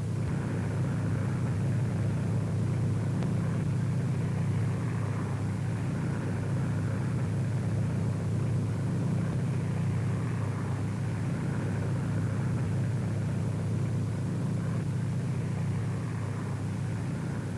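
Twin engines of a Lockheed P-38 Lightning droning steadily in fast flight. The two Allison V-1710 V12s hold an even, low, unchanging note.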